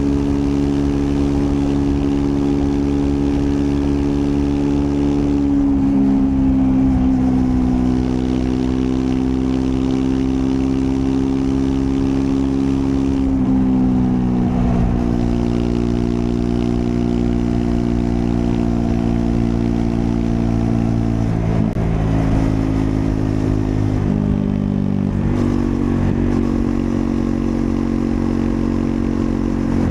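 Triumph Scrambler 400 X's 398 cc single-cylinder engine running under way at fairly steady revs. Its pitch drops in steps a few times, about 5, 14 and 24 seconds in, then holds.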